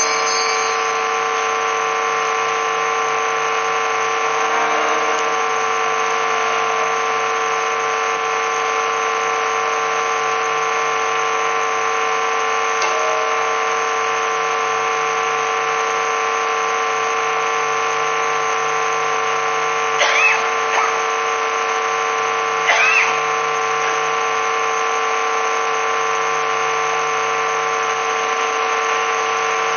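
A steady drone of several held tones, unchanging throughout, with two brief higher sliding sounds about two-thirds of the way through.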